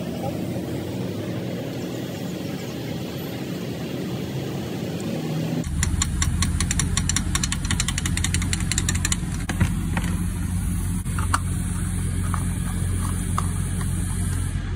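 Gas pump nozzle dispensing fuel into a car's tank: a steady low hum that starts abruptly about six seconds in, with a run of rapid clicks for a few seconds and two sharp knocks. Before that, a quieter steady mechanical hum.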